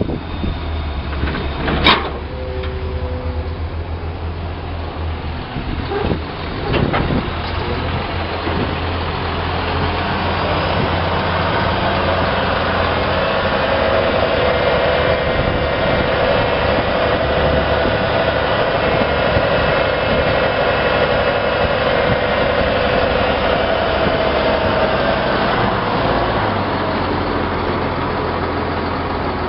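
Diesel engine of a 2003 International 7400 dump truck running, with a few sharp knocks early on, then a steady whine building from about ten seconds in and easing off near the end as the hydraulic hoist raises the dump body.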